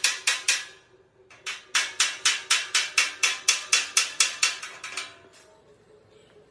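Hand hammer striking a sheet-metal truck bumper in rapid, even metallic blows, about four or five a second. The blows pause briefly about a second in, then resume and stop about five seconds in.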